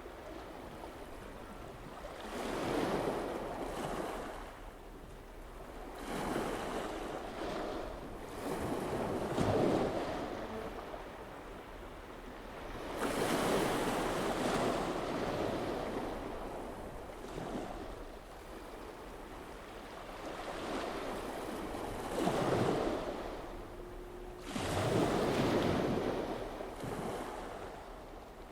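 Waves and wind on open water, rising and falling in surges every few seconds.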